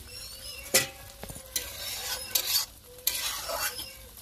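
Steel spoon stirring and scraping small fish in masala around an iron kadhai while the curry sizzles, with one sharp clink of metal on metal about a second in and a few short scraping strokes after it.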